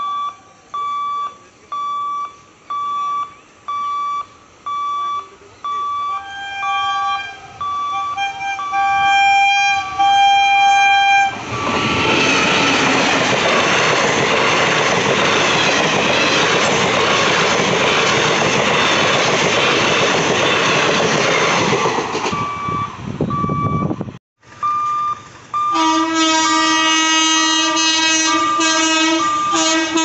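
An electronic warning beep repeats about once a second, then a train horn sounds in several short blasts, followed by about ten seconds of a passenger express rushing past with wheels clattering over the rails. The beeping then resumes, and near the end an electric locomotive's horn blows long and loud.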